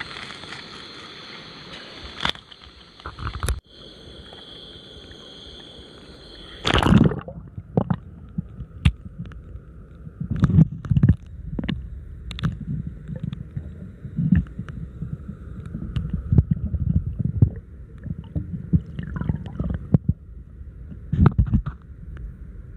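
A steady high-pitched hum over faint hiss. About seven seconds in, a splash as the microphone plunges into river water, then muffled underwater gurgling with irregular dull knocks and thumps.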